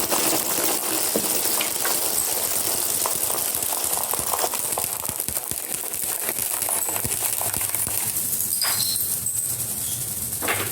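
Marbles rolling and clattering along a marble run track: a steady rolling rumble dotted with small clicks, with a couple of sharper knocks near the end.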